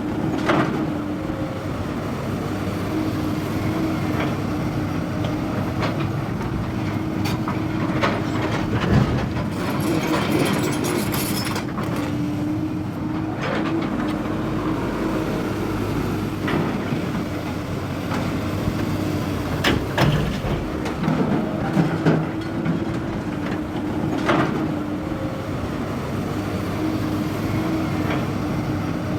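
Hyundai excavator's diesel engine and hydraulics running steadily with a constant hum, while the grapple works, with sharp knocks every few seconds.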